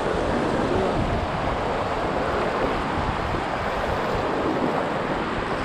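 Fast river water rushing over rocks in shallow rapids, a steady even rush.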